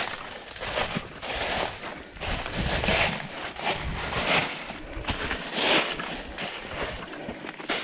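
Footsteps crunching through dry fallen leaves on rocky ground, in a steady rhythm of a step every half second or so.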